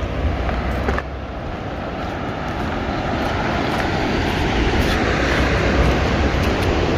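Wind buffeting the microphone over a steady rushing noise that slowly grows louder through the middle.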